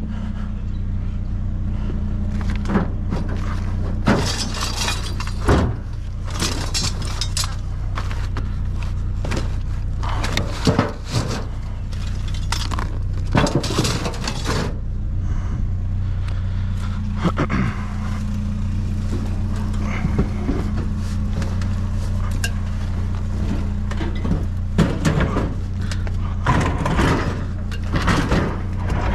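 A truck engine idling steadily under repeated clanks, knocks and scrapes of sheet metal as a discarded kitchen stove is handled and worked onto a pickup's tailgate.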